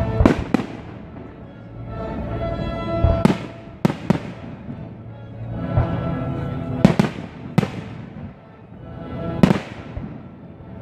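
Aerial firework shells bursting with sharp bangs that echo, coming singly or in quick groups of two or three every few seconds, over classical music playing throughout.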